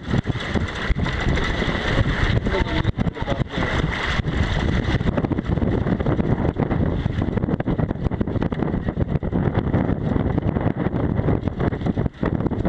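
Strong, gusty wind buffeting the microphone aboard a small sailboat, a loud, rough rumble that surges and dips continually.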